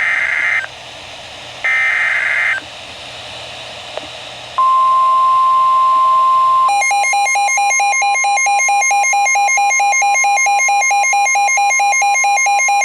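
Emergency Alert System signal on NOAA Weather Radio, coming through a Midland WR120 weather radio's speaker. First the last two harsh digital screeches of the SAME header, then the steady 1050 Hz warning alarm tone begins about four and a half seconds in, signalling a warning is about to be read. About two seconds later the radio's own alarm starts beeping rapidly over the tone.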